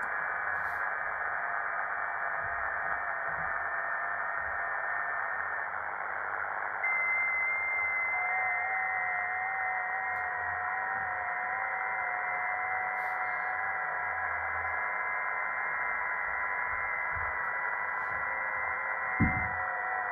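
ATS-120D shortwave receiver's speaker playing the FT8 digital-mode frequency: band hiss with several steady tones from different stations sounding at once. One set of tones stops about six seconds in and a new set starts a second or so later, the next FT8 transmission cycle. A single thump sounds near the end.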